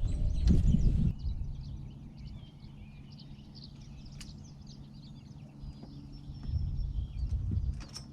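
Birds chirping and singing over a steady low hum, with louder low knocks and rumbles in the first second and again about six to seven and a half seconds in.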